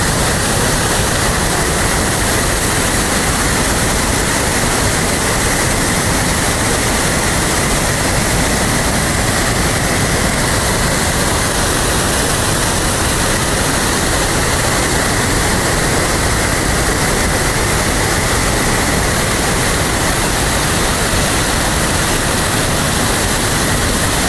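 A loud, steady rush of running water that holds even and unbroken throughout.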